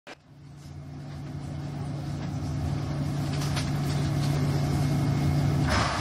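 683 series electric train standing at the platform with a steady low hum that swells up from the start, followed by a short burst of hiss near the end.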